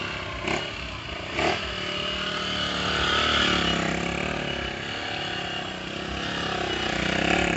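Small motorcycle engine running on the throttle as the rider holds a wheelie. It grows louder and softer as the bike circles past.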